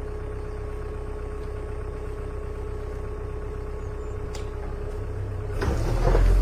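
Excavator's diesel engine idling steadily, then revving up louder near the end.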